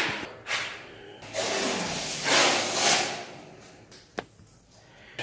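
A hissing scrape lasting about two seconds, then a single sharp click about four seconds in, as a blue drywall T-square is handled and laid on the bare concrete floor.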